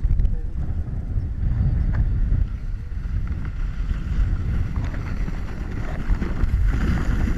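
Wind rumbling on the action camera's microphone and a sled hissing over packed snow during a run down a hill. It starts abruptly and stays loud throughout.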